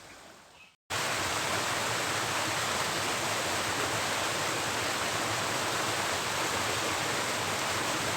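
The tail of music fades out, then after a brief gap a steady, even rush of flowing water starts about a second in and holds.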